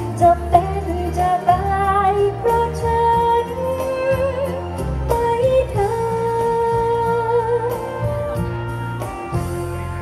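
A woman singing a slow Thai song live into a microphone over a band accompaniment with bass and drums. She holds long notes with vibrato.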